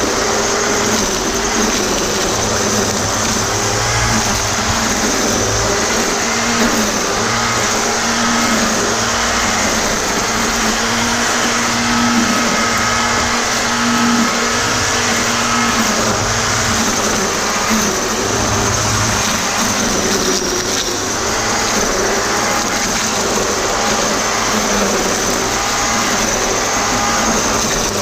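Black & Decker GL7300 700-watt electric string trimmer running steadily, its motor whining with slight wavering in pitch.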